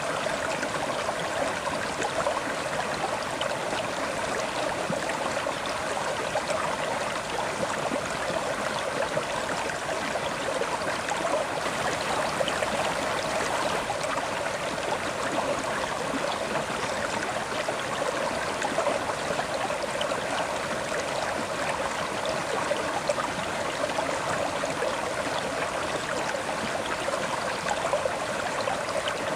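River water flowing steadily over rocks, a continuous babbling rush with fine splashing detail.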